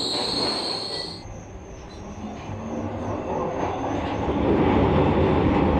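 Glasgow Subway train: high-pitched wheel squeal that cuts off about a second in, followed by the low rumble of the train running, building and loudest near the end.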